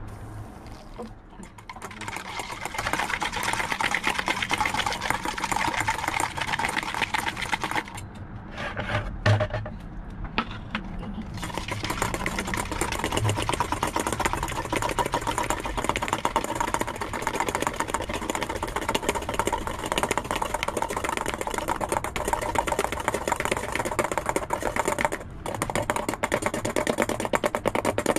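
Dalgona coffee mixture whipped by hand in a small stainless steel bowl: a metal whisk rattling fast and steadily against the bowl. It stops briefly about eight seconds in, then carries on.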